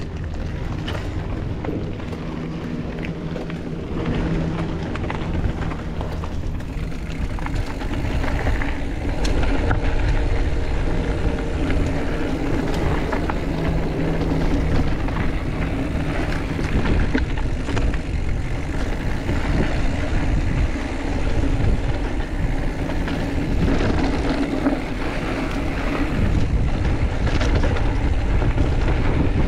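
Mountain bike riding down a trail with wind buffeting the camera microphone, a low tyre rumble and frequent sharp rattles over bumps. It grows louder over the first ten seconds or so as the bike picks up speed, then stays loud.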